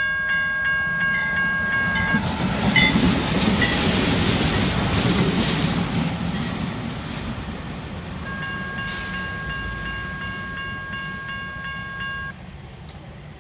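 Two Canadian National diesel locomotives running light pass close by, their engines rumbling and wheels clicking over the rail joints. They are loudest about three to six seconds in, then fade as they draw away. A grade-crossing bell rings steadily at the start, is drowned out as the locomotives pass, is heard again later and cuts off suddenly about twelve seconds in.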